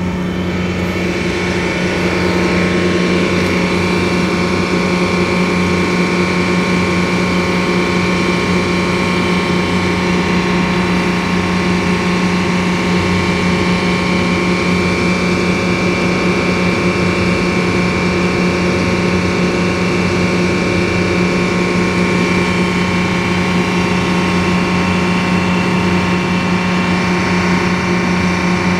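Diesel railway locomotive engine running steadily, a constant low drone with a steady high whine above it, getting a little louder about two seconds in.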